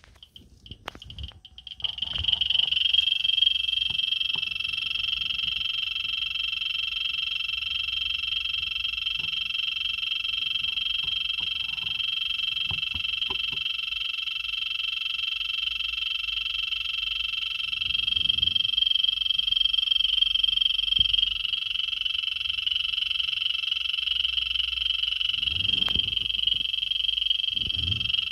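Geiger counter's clicks pile up about two seconds in until they merge into a continuous high-pitched buzz. This is a very high count rate from pitchblende uranium ore at the probe, over 500,000 counts per minute.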